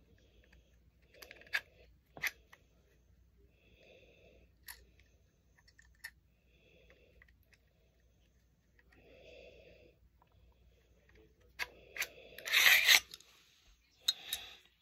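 Metal parts of a Desert Eagle .44 Magnum pistol being handled during reassembly: scattered sharp clicks and light scraping, then a louder run of metal clatter and sliding near the end. Soft breaths recur about every two and a half seconds between the clicks.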